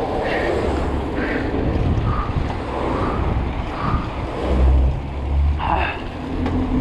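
Wind rushing over the microphone of a camera carried on a moving bicycle, with road and tyre noise. The rumble swells for about a second around two-thirds of the way through.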